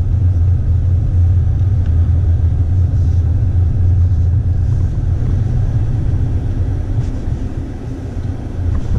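Cabin noise of a moving Mercedes-Benz A200 (W177): a steady low drone of engine and road noise, easing slightly near the end.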